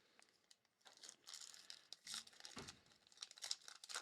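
Crinkling and tearing of a trading card pack's foil wrapper as it is ripped open. It starts about a second in as a dense run of small, quiet crackles.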